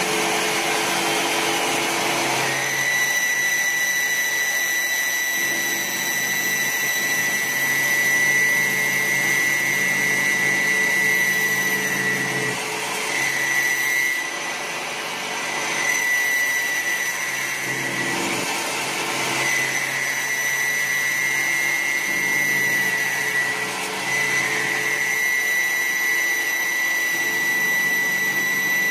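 CNC wood lathe turning a wooden spindle: a steady, high-pitched machine whine over a lower hum and the hiss of cutting, with the whine dipping briefly several times.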